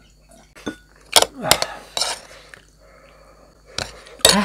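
Cutlery clinking and clattering against plates and bowls at a meal: several sharp clinks, the loudest about a second in and just before the end.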